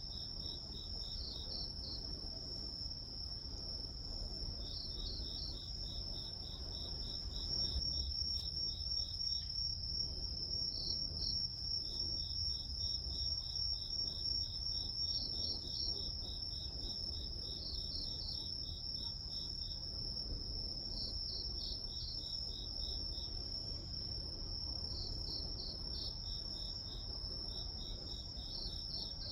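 Crickets and other grass insects calling at night: one high, unbroken trill, with a second insect's evenly pulsed chirps coming in short runs every few seconds, over a faint low rumble.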